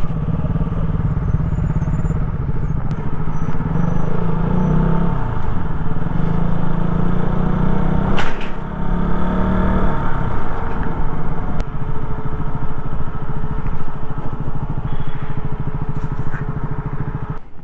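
Motorcycle engine running while riding, its pitch rising and falling a couple of times with the throttle. A single sharp click about eight seconds in.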